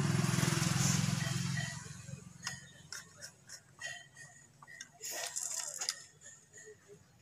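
A low rumble is loudest in the first second and a half, then fades. After it come small metallic clicks and scrapes from a screwdriver and copper wire working on the terminal screws of a switch and socket, with a longer rustling scrape about five seconds in.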